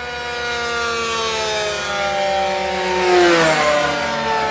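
RC model airplane engine and propeller making a fast, low pass: the note grows louder and then drops sharply in pitch as the plane goes by about three seconds in.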